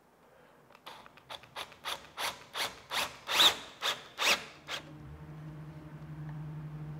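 A screw being driven into a wooden toe rail with a cordless drill: a run of about a dozen short rasping strokes, about three a second, growing louder, then stopping about five seconds in. A steady low hum follows.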